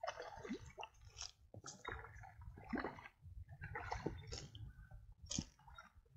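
River water splashing and dripping in irregular small sloshes and plips.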